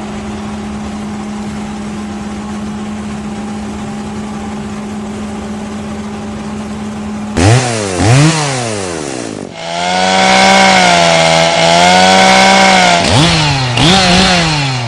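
Two-stroke chainsaw engine running steadily at low speed, then revved hard twice about seven seconds in. It is held at high revs with its pitch wavering for a few seconds, then revved twice more near the end.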